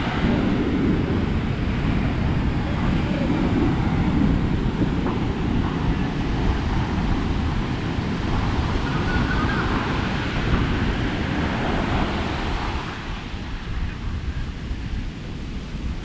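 Ocean surf breaking and washing up on a sandy beach, mixed with wind buffeting the action camera's microphone.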